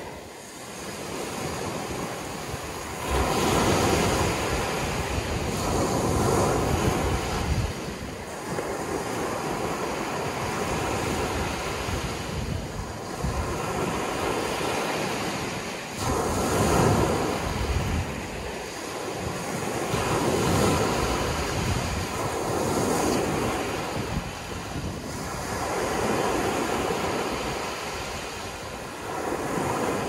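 Ocean surf: waves washing in as a steady rushing that swells and fades every few seconds.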